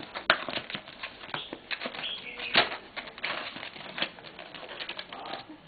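Jigsaw lampshade pieces being handled and slotted together: a run of small irregular clicks and rustling, with a sharp click about a third of a second in and a louder one about two and a half seconds in.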